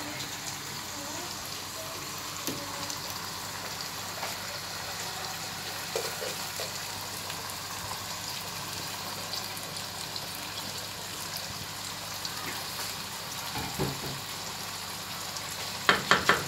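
Rice and lentils frying in oil in a pan with a steady sizzle, stirred with a wooden spoon. Near the end the spoon knocks against the pan several times in quick succession.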